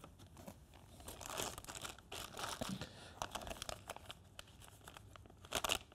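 Clear plastic parts bag crinkling as it is handled, in faint irregular crackles with a louder rustle near the end.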